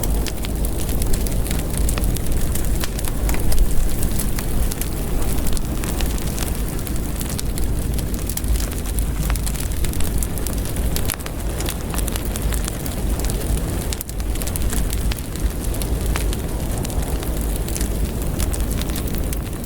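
Heavy rain hitting a window, a steady wash of noise full of sharp drop ticks, over a deep continuous low rumble.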